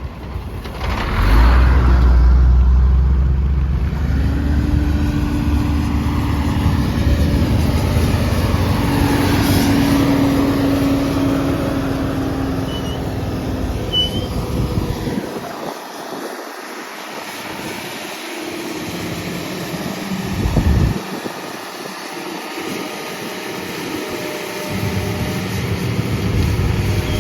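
Excavator working: its engine runs under load with a heavy low rumble, and a steady whine carries on for about ten seconds. The rumble thins out in the second half, with a short loud burst about three-quarters of the way through.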